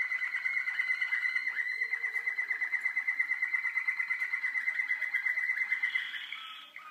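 Young Waterslager (Malinois) song canary singing a long, rapid, evenly pulsed trill at a steady pitch, which gives way to a brief higher note about six seconds in.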